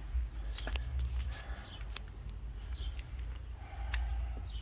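A few scattered light clicks and taps of hand tools and latch hardware as a hood latch is taken back off, over a steady low hum. Faint short chirps come about halfway through.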